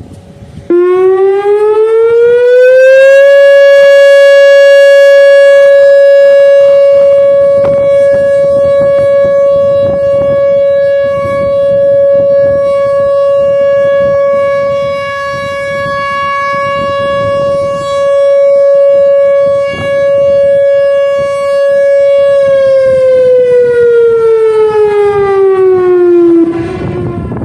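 Whelen WPS-4004 electronic outdoor warning siren sounding its steady alert tone. The pitch glides up over a couple of seconds, holds one note for about twenty seconds with the loudness swelling and dipping slightly, then glides down and cuts off near the end.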